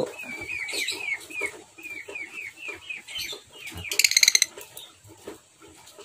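Lovebird calls: a quick run of short, repeated chirps for about three seconds, then a brief harsh squawk about four seconds in.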